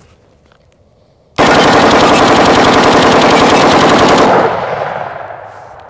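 5.56 mm AR-style rifle firing a full 30-round magazine as one rapid, continuous string of shots lasting about three seconds. The echo fades away over the last second and a half.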